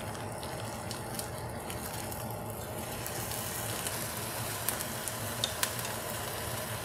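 Frozen beef fat trimmings starting to sizzle in a hot enameled cast-iron Dutch oven as they begin to render, with scattered faint crackles. The sizzle builds a little after about three seconds.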